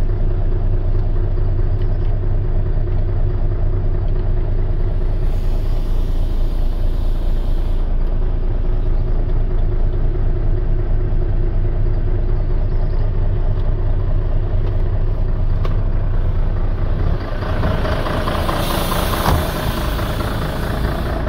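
Mercedes-Benz SK 3234 truck's V6 diesel engine idling steadily, heard from inside the cab. Near the end the sound turns more open and noisy, with a hiss, as the engine is heard from outside the cab.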